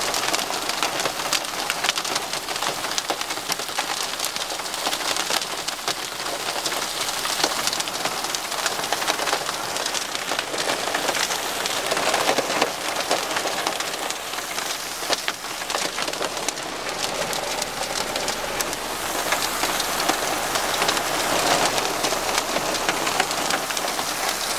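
Pea-sized hail and heavy rain falling: a dense, steady hiss of rain full of sharp ticks of hailstones striking.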